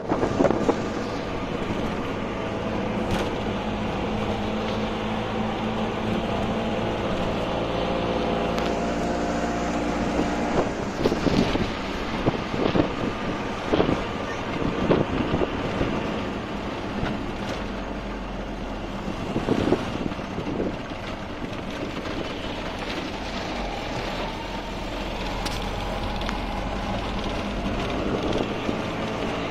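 Auto-rickshaw's small engine running steadily as it drives along a road, heard from inside the open cab, its note shifting in the first few seconds. Sharp knocks and rattles of the body come through in the middle stretch.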